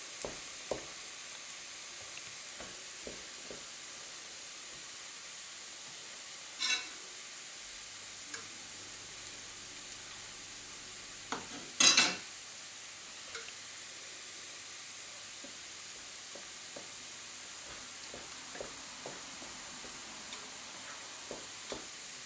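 Steady sizzle of porcini mushrooms frying in a pan, with a wooden spoon stirring risotto rice in a stainless pan, giving light scrapes and clicks. About twelve seconds in, a short loud hiss as a ladle of warm vegetable stock goes into the hot rice.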